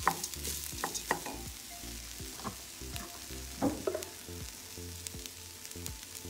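Wooden spoon stirring and scraping dry rice against the bottom of a stainless steel pot over a light sizzle, as the rice toasts with onions and seasoning in a little oil. There are scraping strokes in the first second and again a few seconds in.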